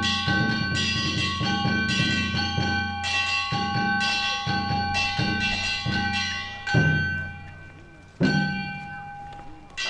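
Danjiri festival percussion: hand-struck bronze gongs ringing in a fast, even beat over a drum. About two-thirds of the way in the beat stops, and two single loud strikes follow, each left to ring out and fade.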